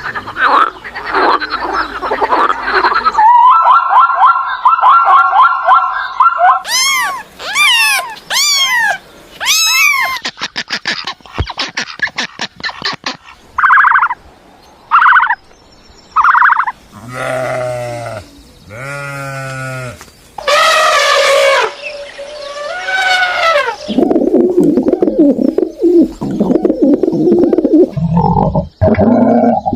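Several different animal calls played one after another: high sweeping chirps and a fast rattling trill in the first half, then lower calls with a wavering pitch.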